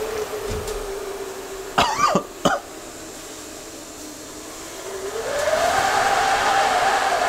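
Grill D Cometa Vega wood-burning sauna stove humming as steam rushes out of its enclosed stone chamber after ladles of water: a steady tone that slowly sinks, then about five seconds in rises in pitch and grows louder with a hiss. A man coughs twice about two seconds in.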